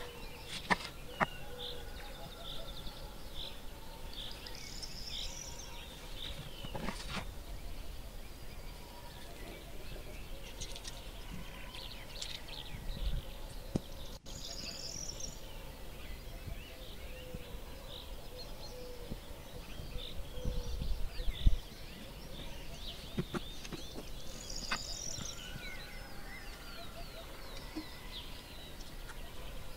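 Birds chirping and calling throughout, over a steady low outdoor background hiss. Occasional sharp clicks and knocks come from dishes and containers being handled, with one louder low thump about two-thirds through.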